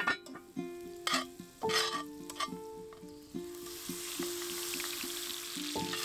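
Bacon sizzling in a cast-iron Dutch oven set in a campfire, with a few sharp knocks in the first two seconds. Background music plays held notes throughout.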